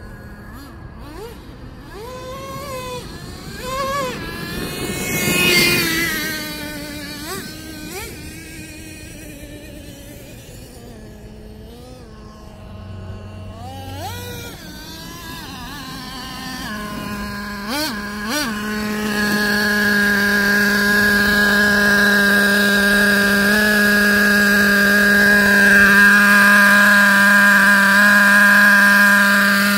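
Traxxas T-Maxx 3.3 nitro RC truck's small two-stroke glow engine revving up and down as the truck is driven back and forth, with one loud close pass. A little past halfway it gives two sharp revs, then runs close by at a steady high pitch, louder, while its new carburetor is being tuned.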